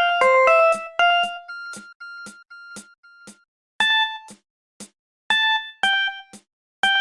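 A Samsung SGH-E250 ringtone playing: a short synthesized melody of bright beeping notes over a steady ticking beat. The phrase starts over near the end.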